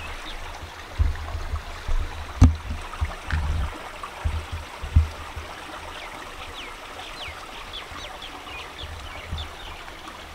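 A small, shallow stream trickles among boulders. Short, high bird chirps come in a run through the second half. There are low thuds in the first few seconds and one sharp click about two and a half seconds in.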